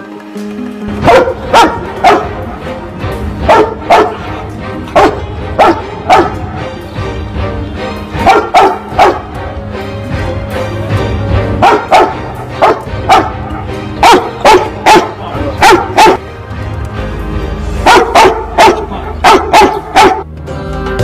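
A dog barking loudly and repeatedly in short runs of barks, with short lulls between runs, over low background music.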